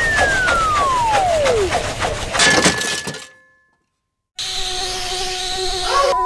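Small quadcopter drone's propellers buzzing while a single whistle slides steadily down in pitch over about two seconds, followed by a short clatter about two and a half seconds in. After a second of dead silence, another drone's steady whine starts.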